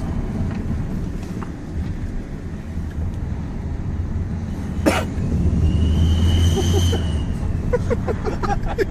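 Ford Focus engine running under acceleration with an aftermarket exhaust turbo whistle: about five seconds in the engine grows louder and the exhaust whistle sounds one high whistle for about two seconds, rising then easing off, after a sharp click.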